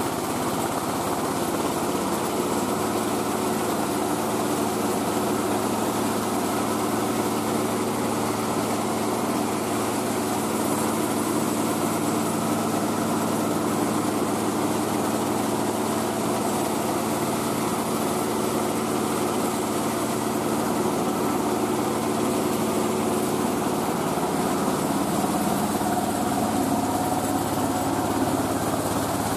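Mobile rice-milling machine running steadily, its engine driving the mill as rice is milled.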